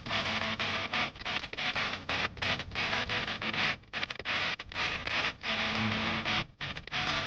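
Background music led by distorted electric guitar, with many short, abrupt breaks.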